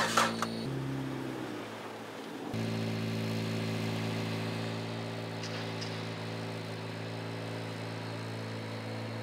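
A car engine idling with a steady note. About a second in the note drops lower and sags, then from about two and a half seconds in it runs evenly again.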